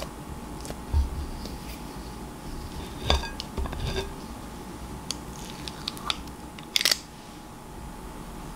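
Metal cookie scoop scraping and clinking in a glass mixing bowl, with scattered sharp clicks and knocks from its spring-loaded release and from dough balls set down on a baking tray; the loudest come about a second in, about three seconds in and near seven seconds.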